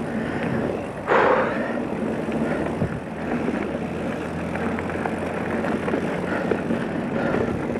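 Mountain bike riding noise: wind rushing over the camera microphone while the tyres roll over the dirt trail and the bike rattles. There is a louder rush about a second in.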